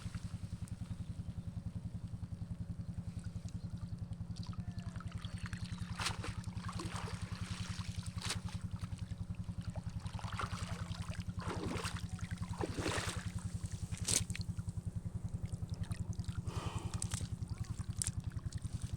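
A small engine running steadily with an even, rapid beat, with intermittent splashing and sloshing of water over it.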